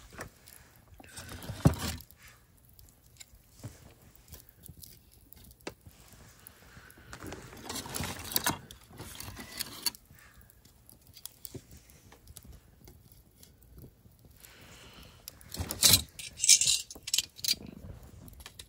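Small metal pieces jingling in three short bouts: one about two seconds in, a longer one around eight seconds, and the loudest near sixteen seconds.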